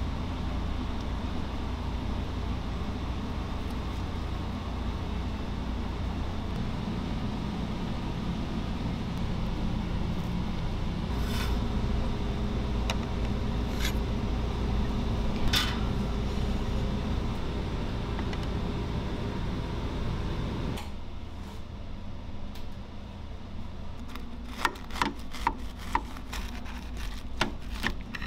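A steady low hum from the kitchen with a few sharp knocks as a crispy fried chicken sandwich is assembled and plated. About two-thirds of the way through the hum drops away, and near the end a knife and fork cut through the crusted fried chicken and bun with a quick run of sharp crackling clicks.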